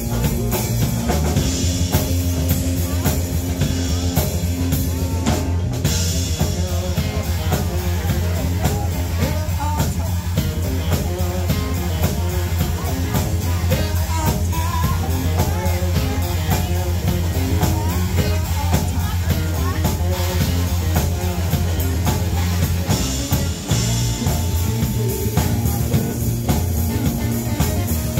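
Live rock band playing: electric guitar, electric bass and a Yamaha drum kit.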